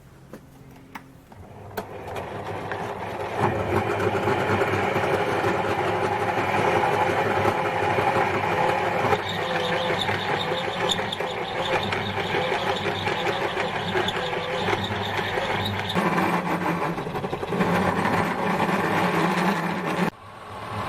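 Metal lathe starting up about two seconds in and running steadily while a 7/8-inch drill bit opens the bore of a cast aluminium pulley. The sound shifts around nine seconds and again near sixteen, and the lathe stops abruptly near the end.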